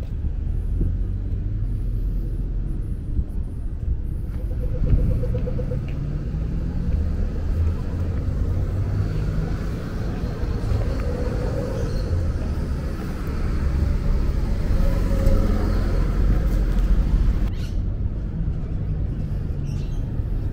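Road traffic on a city street: cars passing, a steady low rumble with engine notes rising and falling in pitch.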